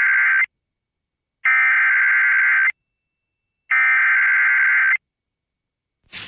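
Emergency Alert System SAME header: three identical bursts of shrill digital data tones, each a little over a second long with about a second of silence between, the first already under way at the start. The bursts carry the coded alert data and mark the start of an emergency alert broadcast.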